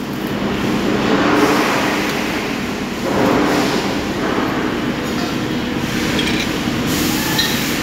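Steady din of running machine-shop machinery, with a few faint metallic clinks near the end.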